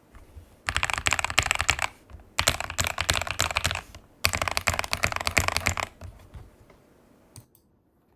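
Fast typing on a Royal Kludge RKG68 mechanical keyboard with KTT Kang White linear switches, PBT XDA keycaps, a tape mod and foam. It comes in three quick runs of rapid keystrokes with short pauses between, then a few scattered keystrokes as the typing tails off near the end.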